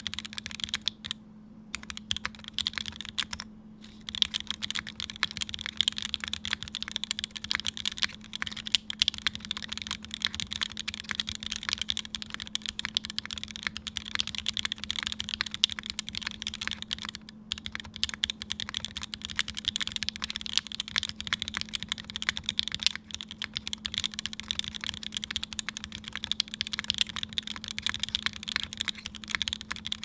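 Continuous typing on a Wilba.Tech Thermal mechanical keyboard fitted with H1 switches lubed with Krytox 205g0 and filmed, GMK keycaps on an aluminium plate: a dense run of keystrokes with a few short pauses, the clearest about a second in, near four seconds and at about seventeen seconds.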